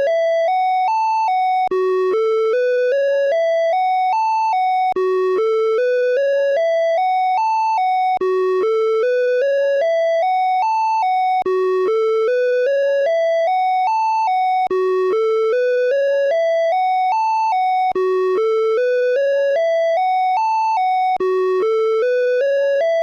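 Åland Islands EAS emergency alert tone playing on a loop: a rising run of about eight short electronic notes that drops back and starts again every three seconds or so.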